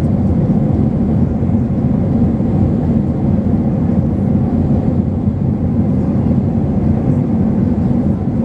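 Airbus A320 cabin noise heard from a window seat over the wing: the engines and rushing air make a loud, steady, low-pitched rumble that doesn't change.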